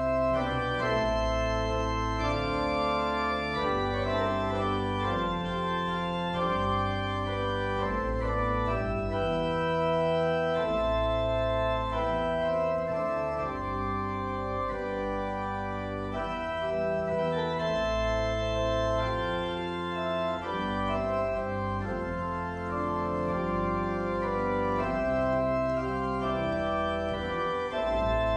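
Organ playing a hymn tune in slow, held chords over a moving bass line.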